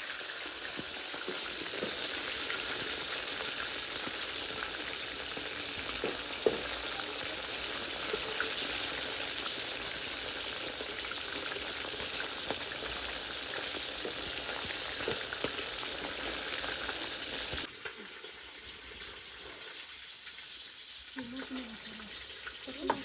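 Food deep-frying in hot oil: a steady sizzle with scattered pops and clicks, which drops off abruptly to a quieter background about eighteen seconds in.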